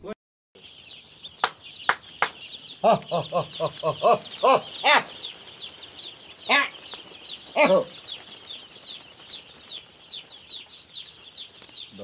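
A flock of day-old broiler chicks peeping continuously, a dense chorus of short, high, falling cheeps. A few sharp clicks come near the start, and a run of louder, lower calls about three seconds in.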